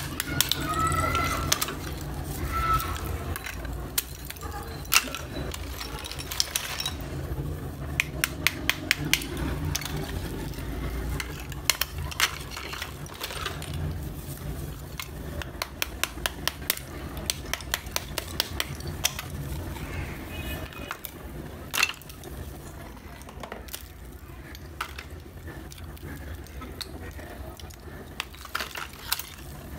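Thin layers of roasted multani mitti (fuller's earth clay) crack and snap off as a metal tool pries them apart, giving a long run of sharp little clicks and cracks, many in quick clusters.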